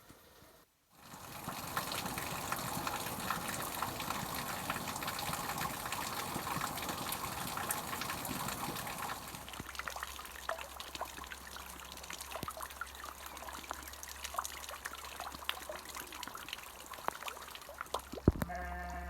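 Water running and splashing, with many small dripping ticks; heavier at first, it thins out after about nine seconds, when a low steady hum comes in. A sharp knock near the end.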